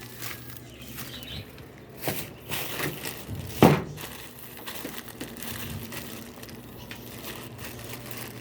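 Rustling and crinkling handling noise with two sharp knocks, about two and three and a half seconds in, over a faint low steady hum.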